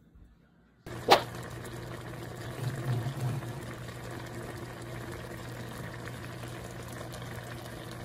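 Braised sea bass simmering in broth in a frying pan, a steady bubbling with a low hum under it. A sharp click about a second in starts it.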